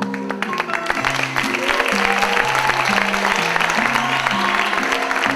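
Audience applause breaks out suddenly and carries on over music with a steady, repeating plucked-string line.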